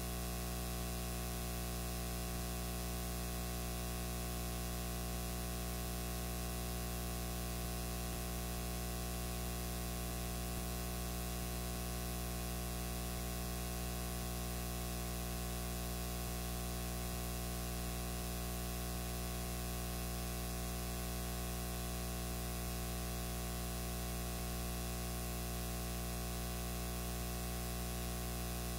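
Steady static hiss with a low hum underneath, unchanging throughout; no speech comes through.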